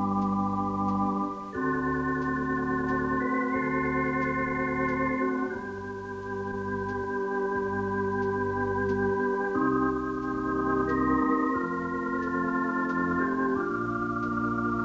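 Background organ music with slow, sustained chords over a bass line that moves every second or two.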